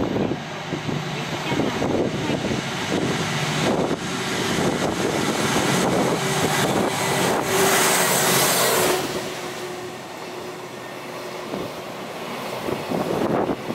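Container freight train approaching and running through a station, with wind buffeting the microphone. The loudest part comes about eight seconds in, as the locomotive goes by: a rush of noise with a steady tone. After that the container wagons roll past more quietly.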